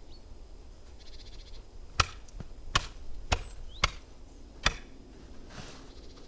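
A long pole struck down hard five times: sharp knocks starting about two seconds in, roughly half a second to a second apart, the first the loudest.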